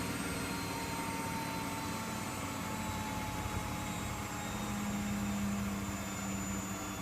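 Miele W Classic WDA110 washing machine drum in its high-speed final spin: a steady motor and drum hum with whining tones, the pitch starting to fall slightly as the spin begins to slow down.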